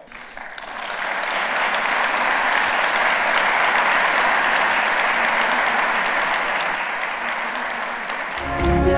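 Large audience applauding, building up over the first second and then holding steady. Near the end a music track starts over it.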